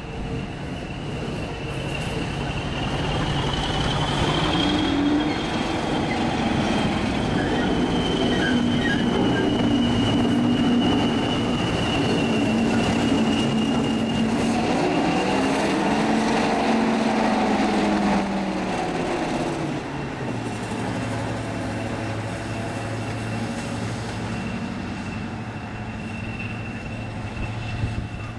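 Class 55 Deltic locomotive, with its twin Napier Deltic two-stroke opposed-piston diesel engines, running double-headed with a second diesel locomotive past the platform. The engine note builds and is loudest for several seconds, then drops in pitch and fades as the locomotives go by and draw away. A steady high whine runs over the engine note.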